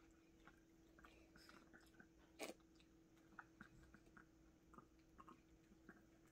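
Faint chewing of Yorkshire terriers eating pieces of mandarin orange taken from the hand: scattered soft wet clicks and smacks, with one sharper click about two and a half seconds in.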